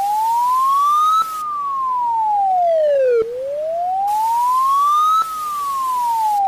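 Emergency alert siren wailing: a single tone sweeping slowly up and down, about two seconds rising and two falling, over hiss.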